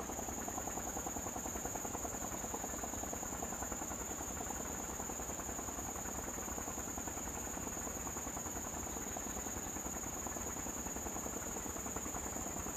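Steady insect chorus: a continuous high-pitched drone over a fast, even buzzing pulse, with no change throughout.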